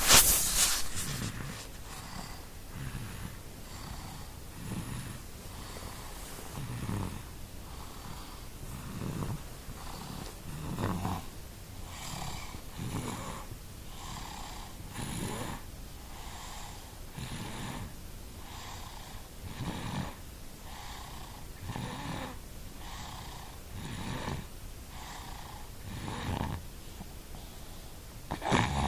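Rhythmic snoring, one breath about every two seconds, each a low rattle followed by a higher, airy wheeze. A louder, sharper burst of sound comes at the very start and again at the end.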